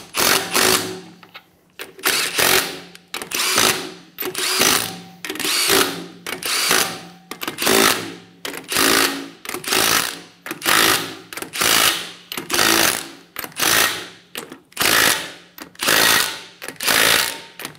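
Cordless impact wrench snugging down lug nuts, fired in short hammering bursts about once a second, each starting sharply and fading quickly.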